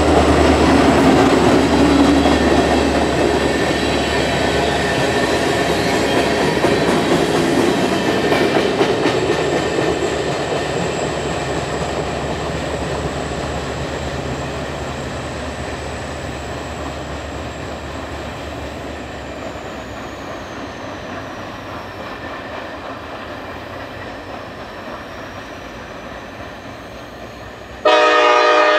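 Freight train with diesel locomotives rolling past, the low engine drone and the rumble of the cars fading slowly as it moves away. Just before the end a loud five-chime Leslie S5T horn cuts in suddenly, several notes sounding together as a chord.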